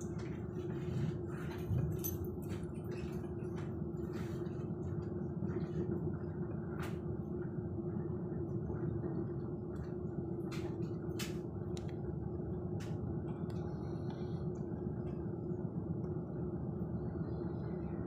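Cabin noise inside a moving ÖBB Railjet passenger train: a steady low rumble of the running gear on the track with a constant hum, and scattered light clicks.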